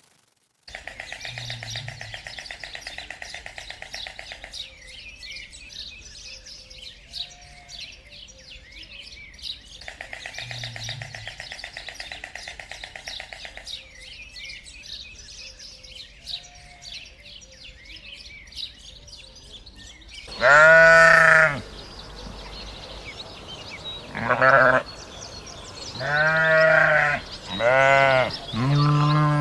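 A farm animal bleating loudly several times in the last third, in pitched, wavering calls. Before the bleats there is a background of steady high chirping.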